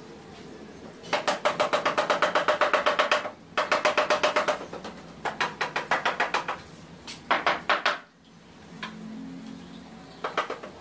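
A bladed hand tool scraping rapidly back and forth across the rough boards of a wooden tabletop to smooth them. It comes in several runs of quick strokes, about seven or eight a second, with short pauses between runs and a brief last run near the end.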